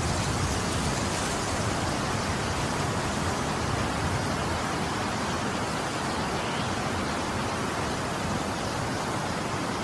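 Steady, even hiss of noise with no distinct sounds in it.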